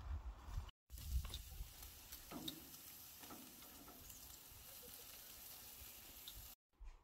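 Burgers and bacon sizzling on a barbecue grill, a steady soft hiss with a few faint clicks of tongs turning the meat.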